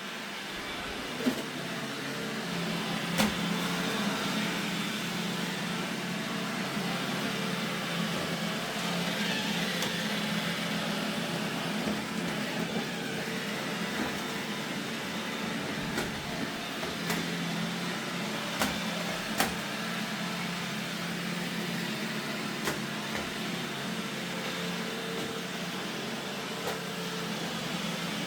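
Robot vacuum cleaner running steadily with a motor hum, with a dozen or so sharp clicks or knocks scattered through it.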